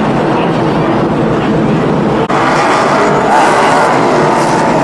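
NASCAR stock cars' V8 engines running loud and continuous, with a brief dropout about halfway through.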